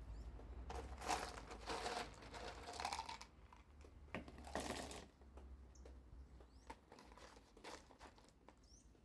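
Handling noises of repotting succulents: a few short crinkling, crunching scrapes and light clicks, as of hands working potting soil and pots.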